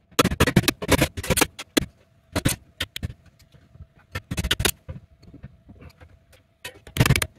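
Metallic clicking, knocking and rattling as 1-inch knockouts are knocked and pried out of the bottom of a metal meter base enclosure, in several irregular bursts of quick strikes with short pauses between.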